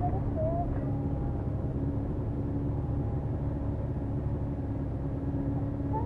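Motorcycle engine running at a steady speed under a low rumble, with a few steady engine tones and no change in pitch.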